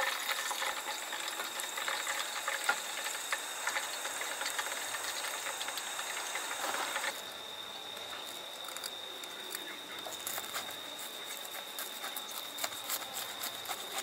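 Breaded cutlet sizzling and crackling in hot frying oil. About seven seconds in, the sound changes suddenly to a quieter run of small crisp crunches as a knife cuts into the crisp fried crust on a wooden board.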